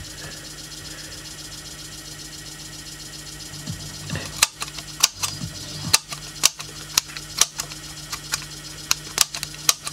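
Low steady hum from a 1970s Peak KA-200 transistor stereo amplifier with its signal cut off. About four seconds in come a string of sharp, irregular clicks and pops, roughly one or two a second, as its front-panel selector switches and knobs are worked.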